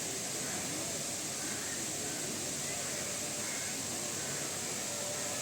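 Faint murmur of distant voices over a steady hiss.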